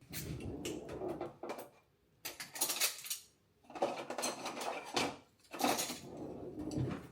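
Household handling sounds: things clinking and scraping in four bursts of a second or so, like dishes and cutlery being moved about.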